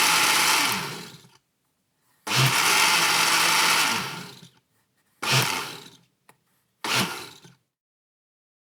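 Single-speed electric blender running, then switched off and winding down. It is switched on again for a run of about two seconds and winds down, then given two short pulses of under a second each.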